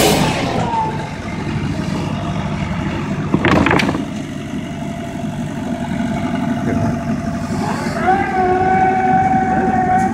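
Mobile band sawmill running: its engine and mill machinery make a steady mechanical noise, with a short clatter a few seconds in. About eight seconds in, a whine rises and then holds at a steady pitch as the mill speeds up.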